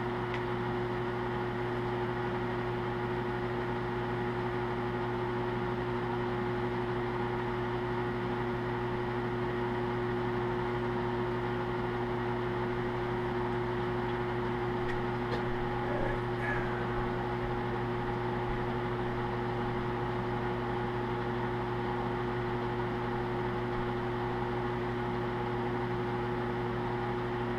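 Steady electric motor hum with several fixed tones, unchanging throughout, and a faint tick about sixteen seconds in.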